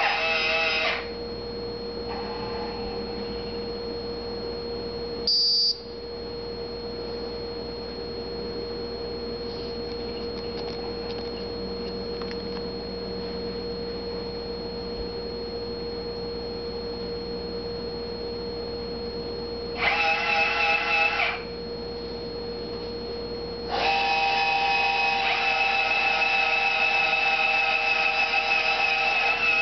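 Meade LXD55 German equatorial mount's drive motors whining as the mount slews under Autostar handbox control, in three runs: briefly at the start, for about a second and a half about two-thirds through, and for about six seconds at the end. A short high tone sounds about five seconds in, and a steady hum lies under it all.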